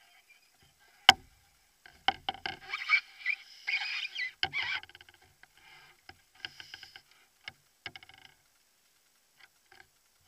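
A canoe being paddled: water splashing and lapping against the hull with knocks from the paddle. A single sharp knock comes about a second in, and a cluster of splashes and knocks follows between about two and five seconds in. After that come only scattered light clicks.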